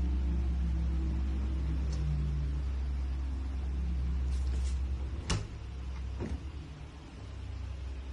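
A steady low electrical hum, broken by a sharp click a little past five seconds in and a weaker click about a second later, after which the hum becomes uneven.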